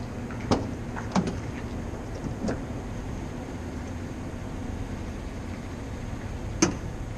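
Knocks and clatters from the rear cargo doors of a 2019 Ford Transit van being swung open and gear inside being handled: four sharp knocks, the loudest near the end, over a steady low rumble.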